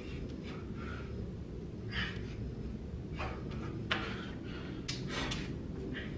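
A man breathing hard through a set of pull-ups: a series of short, sharp exhales and sniffs, roughly one a second from about two seconds in, over a steady low rumble. He is working near exhaustion on his seventh round of sets.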